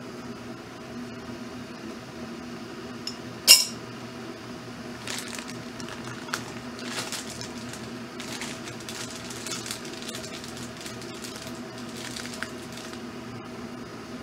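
A metal spoon clinks sharply once against the ceramic teapot about three and a half seconds in. Scattered crinkling and rustling of the foil tea bag follows, over the steady hum of an electric kettle heating water.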